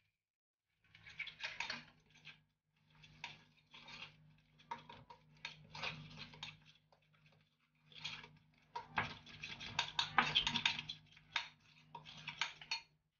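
Crumbly biscuit dough being mixed in a glass bowl, a spoon scraping through it and clicking against the glass while a hand squeezes and kneads it. It comes in irregular stretches with short pauses and is busiest near the end.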